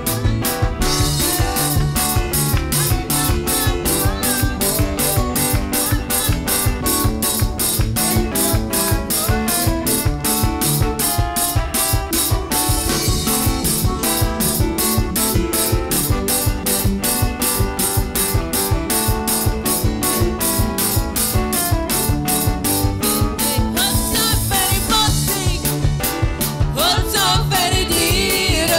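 Upbeat gospel worship music from a live church band, drum kit keeping a steady, quick beat over keyboard chords; a voice starts singing near the end.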